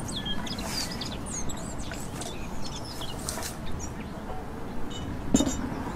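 Small birds chirping here and there over steady outdoor background noise, with one short, sharp click about five and a half seconds in.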